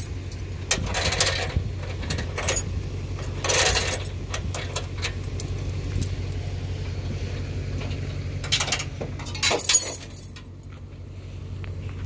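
Vehicle engine idling steadily, with several short metallic rattles and clanks as parts are handled; the engine sound drops away near the end.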